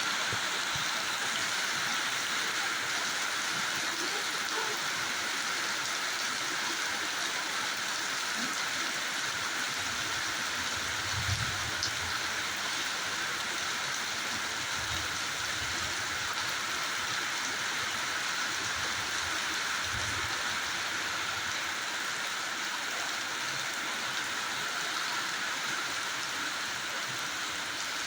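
Steady rain falling, an even, unbroken hiss of drops, with a few brief low rumbles in the middle.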